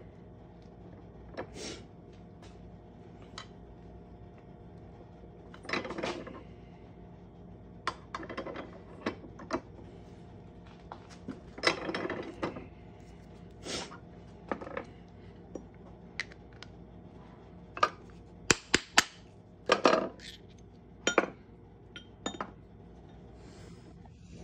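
Metal clinks, clicks and short scraping pushes of a steel ring-reducing die set being handled and worked on a hand arbor press, as a copper ring is pressed down through the die to shrink it. Three sharp clicks in quick succession about two-thirds of the way through are the loudest sounds.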